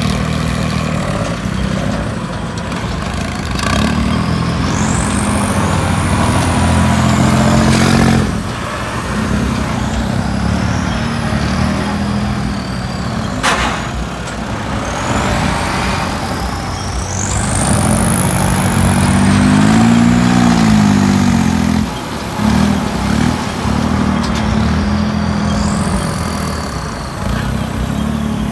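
Kubota tractors' diesel engines running loud under load as they push sand with front blades, revving up and back down about two-thirds of the way through, with high whistling glides over the engine noise.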